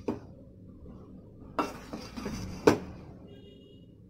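A spatula clanking and scraping against a metal kadai while rice is tossed and mixed: a light knock at the start, then two sharp clanks about a second apart in the middle, with scraping between them.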